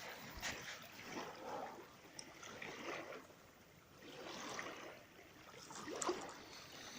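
Faint wash of sea water, swelling and ebbing every second or two, with a couple of light clicks.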